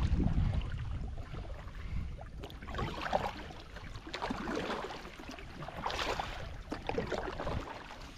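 Double-bladed kayak paddle strokes, the blades splashing and dripping into the river several times, with wind rumbling on the microphone in the first second.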